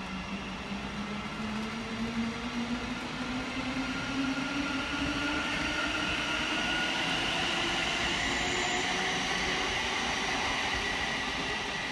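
Electric multiple-unit train pulling away from the station, its traction motors whining in a pitch that rises steadily as it gathers speed, over a steady rumble from the train.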